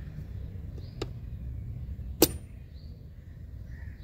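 Two sharp plastic clicks, one about a second in and a louder one a little after two seconds, as a fuse puller grips a blade fuse and pulls it out of the engine-bay fuse box. A steady low rumble runs underneath.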